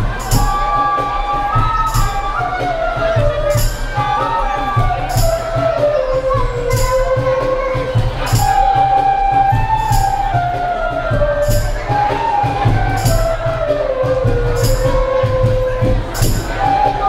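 An ensemble of bamboo bansuri flutes plays in unison, a melody that steps down from high to low in two long descending phrases. Percussion accompanies it: a sharp high clash about every second over a steady low drum beat.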